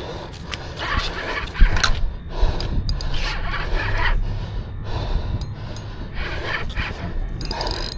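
Heavy, repeated breathing of an angler straining against a big fish on rod and reel, with a low wind rumble on the microphone. A single sharp knock stands out about a second and a half in.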